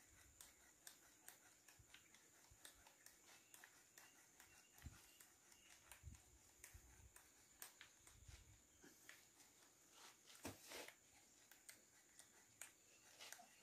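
Faint, irregular clicking and scraping of a hand drill turning its bit into a hard wooden slat, with a louder scrape about ten and a half seconds in. The bit is dull, so the boring goes slowly.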